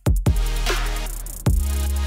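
Electronic background music: heavy drum hits near the start and about a second and a half in, over a sustained deep bass.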